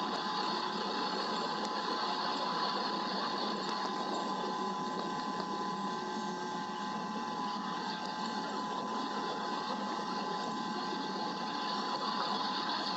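Steady rain pattering on an outdoor nest-camera microphone during a thunderstorm, a dense even hiss of fine rapid drops with a thin steady whine beneath it.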